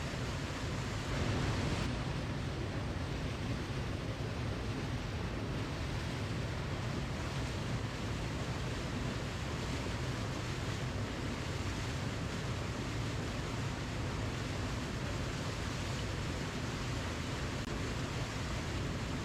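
Waterfall: a steady, even rush of falling water, with a brief swell about a second in.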